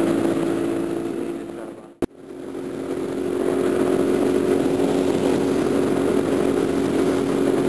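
Motorcycle engine with a slip-on exhaust running at a steady, even pitch, heard from a helmet-mounted camera. About two seconds in the sound fades out to a sharp click, then fades back in.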